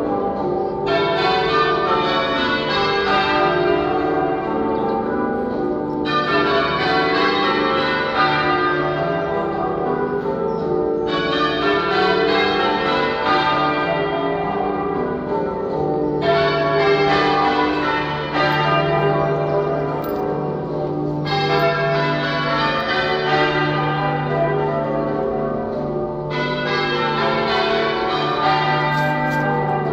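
Manchester Cathedral's ring of church bells being change-rung half-muffled, a steady peal of many bells. Rows of clear, open strokes alternate with duller, muffled rows, the echo effect of half-muffling, the traditional ringing for mourning and remembrance.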